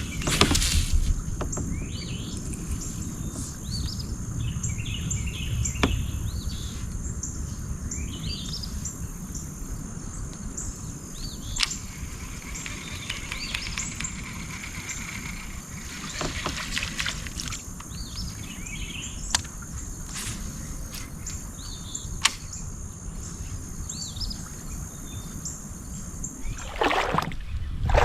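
Outdoor creek ambience: birds calling in short chirps over a steady low wind rumble, with a thin steady high tone throughout. A few sharp clicks come at intervals, and a louder rush of noise comes near the end.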